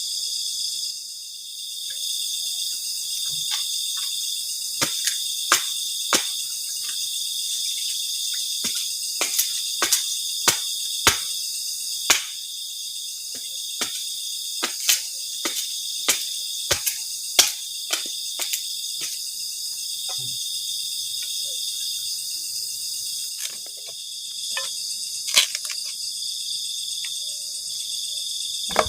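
A steady, high, layered chorus of crickets and other insects, with sharp, irregular snaps and knocks over it, clustered through the first two-thirds and again a little later.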